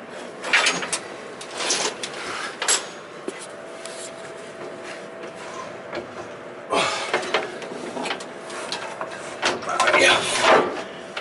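Heavy metal parts being pried and shifted: scraping and clunking in several separate bursts, with a longer scrape about seven seconds in and a cluster of knocks near the end.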